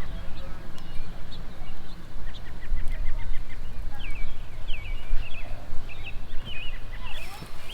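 Small birds chirping in quick, short repeated calls, over a steady low rumble.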